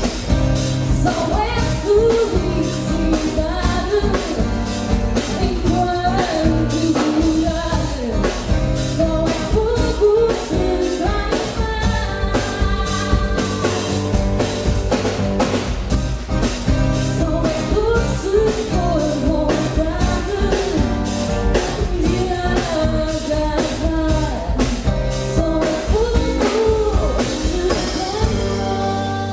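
A band playing a song: a singer's voice over a steady drum-kit beat with guitar and bass.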